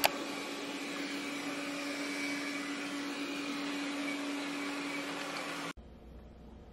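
Robot vacuum cleaner running, a steady whirring hum. It opens with a sharp click and cuts off suddenly near the end.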